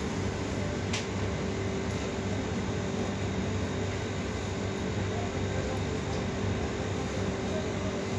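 Steady hum of a supermarket's refrigeration and ventilation machinery, with a constant low tone running under it; a faint click about a second in.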